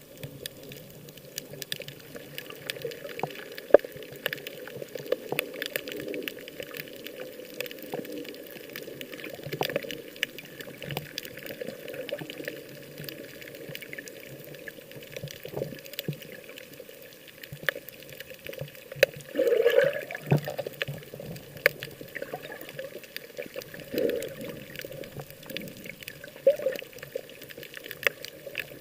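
Sea water sloshing and bubbling, with a steady crackle of small splashes and a louder surge about two-thirds of the way through.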